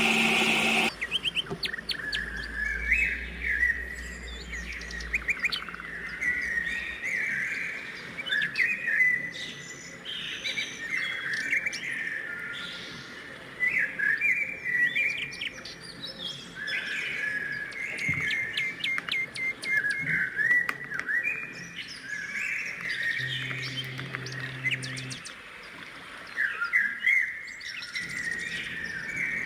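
Small birds chirping and twittering almost continuously, many short calls overlapping. A loud motor sound stops about a second in.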